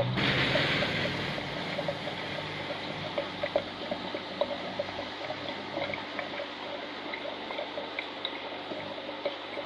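Aquarium water circulating, trickling and gurgling steadily with many small irregular plops, after a brief louder rush of water noise in the first second.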